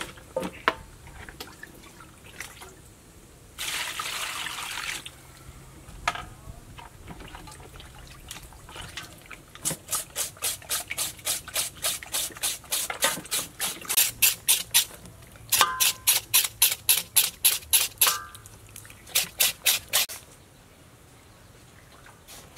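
Kitchen knife scraping the skin of a raw pig's leg in a metal bowl to clean it, in quick, even strokes of about three or four a second, running in bursts through the second half. Earlier there is a brief splash of water lasting about a second.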